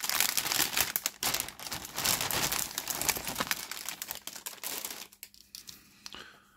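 Plastic parts bag of a scale model kit crinkling and rustling as a sprue is handled in it and pulled out, full of sharp crackles; it dies away about five seconds in.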